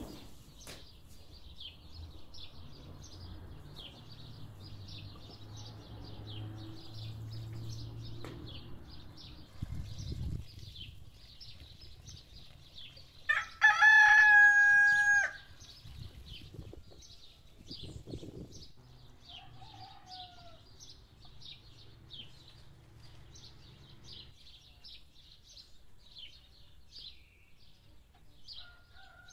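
A rooster crows once, loudly, for about two seconds about halfway through. Small birds chirp quickly and high throughout.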